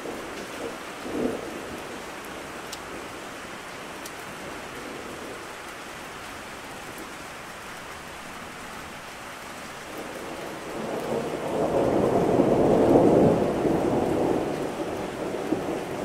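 Steady rain falling, with a short rumble of thunder about a second in. A longer, louder roll of thunder builds from about ten seconds in, peaks a couple of seconds later and eases off near the end.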